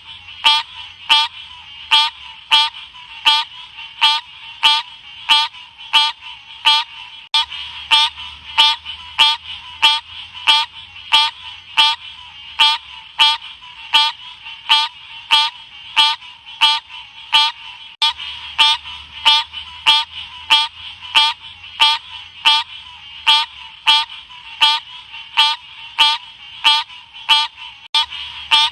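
Green odorous frog (Odorrana livida) calling: short, sharp notes repeated evenly about twice a second.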